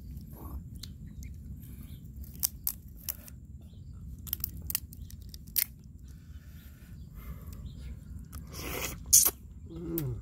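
Grilled crab shell being pulled apart and cracked by hand: scattered sharp cracks and crunches, with a louder crunch near the end, over a steady low rumble.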